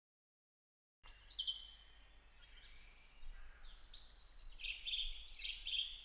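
Silence for about a second, then birds chirping and singing: a series of high whistles and chirps, several sliding downward in pitch, over a faint low hum.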